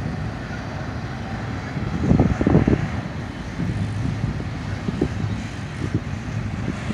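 BNSF intermodal freight train rolling past, a steady low rumble, with wind buffeting the microphone in gusts, the strongest about two seconds in.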